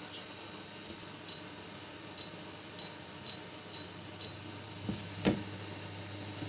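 Touch controls of an induction hob beeping as the power level is tapped up: a row of about six short, high identical beeps. About five seconds in come two sharp knocks, the second the loudest sound, and a steady low hum from the hob sets in and keeps going.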